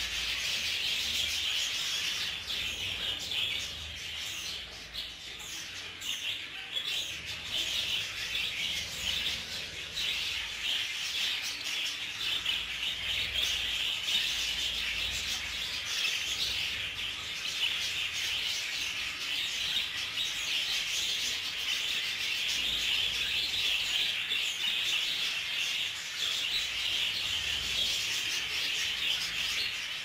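A flock of young budgerigars chirping and chattering without pause, many rapid high warbling notes overlapping, easing off a little a few seconds in.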